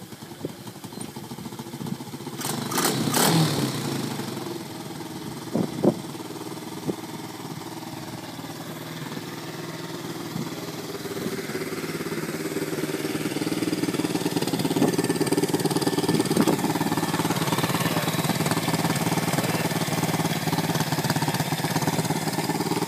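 125cc motorbike engine of a custom-built go-kart starting about two seconds in, then idling steadily, its level climbing gradually from about ten seconds on. A brief sharp knock sounds just before six seconds.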